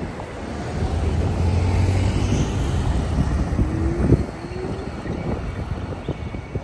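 City street ambience of road traffic, a heavy low rumble mixed with wind buffeting the microphone, which eases off after about four seconds.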